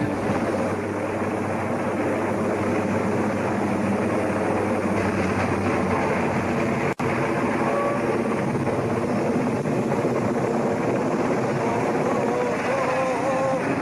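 Steady noise of aircraft engines running, with an abrupt break about seven seconds in where one recording cuts to another.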